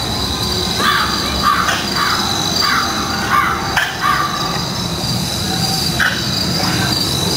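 Crows cawing: a quick series of harsh calls about a second in, thinning out after about three seconds, over a steady background din and a constant high hum.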